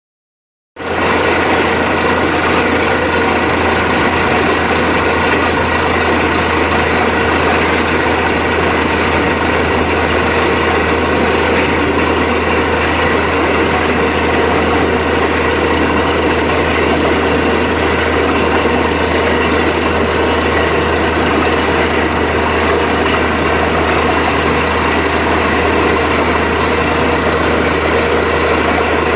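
Borewell drilling rig's heavy engine running steadily and loudly, with a constant low hum and no change in speed. It cuts in abruptly about a second in.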